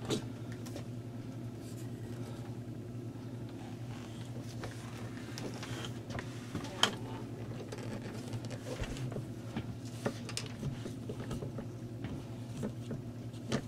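Handling noise from a glossy speaker-dock cabinet being turned over and set down on a towel: scattered light knocks and clicks, the loudest about seven seconds in, over a steady low hum.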